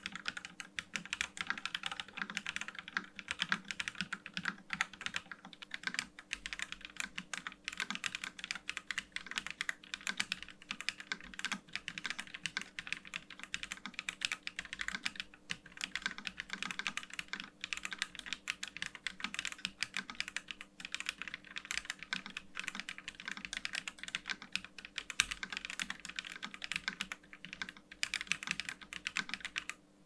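Fast, continuous typing on an Akko SPR75 spring-mounted 75% mechanical keyboard fitted with Akko V3 Silver Pro linear switches and MDA-profile keycaps: a dense run of keystroke clacks that stops right at the end.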